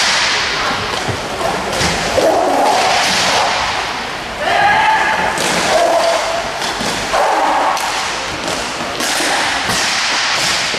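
Inline hockey play in a large hall: repeated sharp clacks and thuds of sticks, puck and bodies against the boards, with shouted calls from players or spectators.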